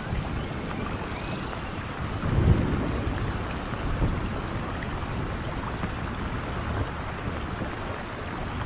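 Heavy rain falling steadily on a wet stone promenade and open water, with a brief low rumble about two and a half seconds in.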